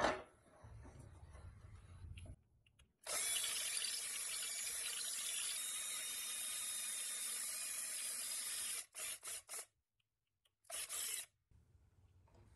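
Power drill boring into the centre of a rusty steel toy-wheel hub held in a vise, running steadily for about six seconds, then three short bursts on the trigger and one more near the end. A sharp knock comes right at the start, before the drilling.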